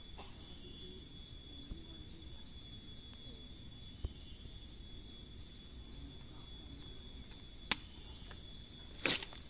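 Insects chirping in short calls repeated about twice a second over a steady high-pitched whine, with a few sharp clicks or knocks, the loudest near the end. No chainsaw is running.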